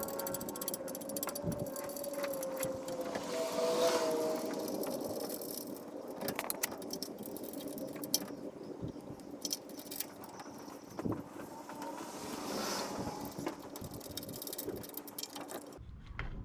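Scattered sharp metallic clicks and clinks of tools and parts being handled while a truck's wheel bearing and hub assembly is taken off. A wavering tone sounds under them for the first four seconds.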